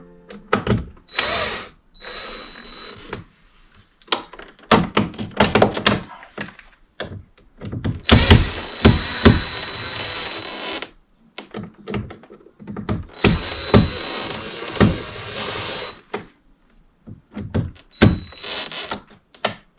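Knocks, clunks and clicks of hands-on work with tools and fittings. Several hissing stretches of one to three seconds, each with a thin high whine, fall between them; the longest come about eight and thirteen seconds in.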